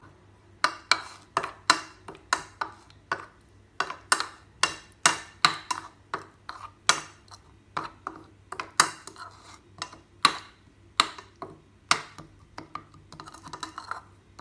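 Repeated sharp clinks of a utensil against a bowl, irregular, about two a second, while masala is mixed into small anchovies.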